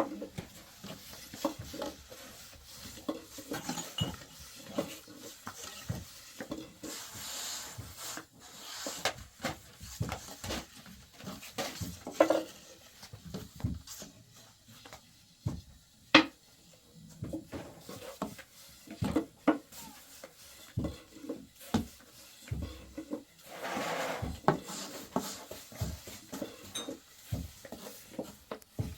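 Irregular clatter of dishes and utensils being handled: scattered light knocks and clinks, one sharper clink about halfway through, and two longer swishing sounds.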